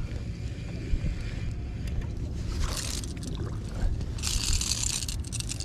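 Rumbling, crackling static from a faulty microphone cable, with two bursts of hiss, a short one about two and a half seconds in and a longer one about four seconds in.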